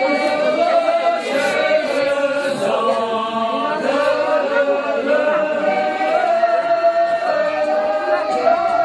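A group of men singing together without instruments, a slow song with long held notes.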